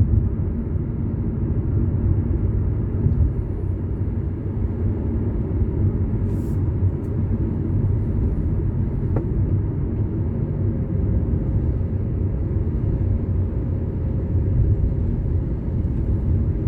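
Steady low road and engine noise inside a moving car's cabin, picked up by a phone mounted on the dashboard.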